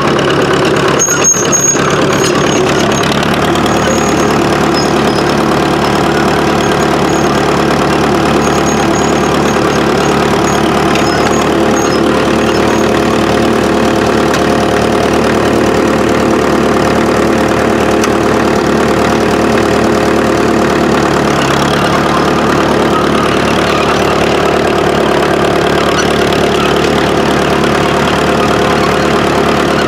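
1955 International TD6 diesel crawler's engine running steadily as the crawler drives along, its steel tracks rolling.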